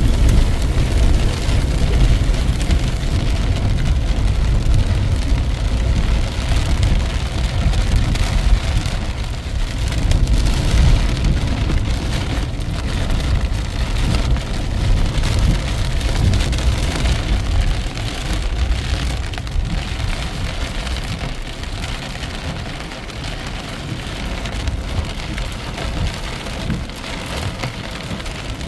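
Heavy rain pouring in a dense, steady hiss, with a strong low rumble underneath that eases a little in the second half.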